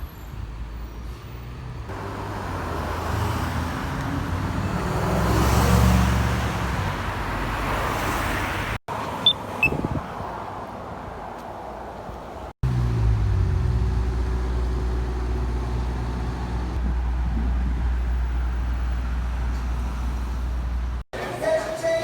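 Road traffic sounds in several short cuts. First, a vehicle's noise swells to a peak about six seconds in and eases off. Later, a low engine hum drops in pitch and settles into a steady low rumble.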